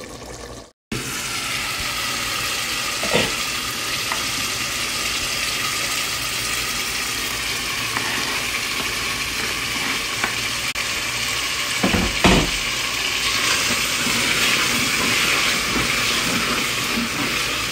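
Chicken curry sizzling steadily in a pot on the stove while chopped coriander is added and stirred in with a wooden spoon, with a few knocks of the spoon against the pot, the loudest about twelve seconds in.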